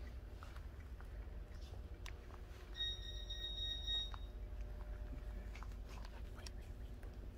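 Quiet room tone with a low rumble and scattered small clicks; about three seconds in, a single steady electronic beep lasting about a second.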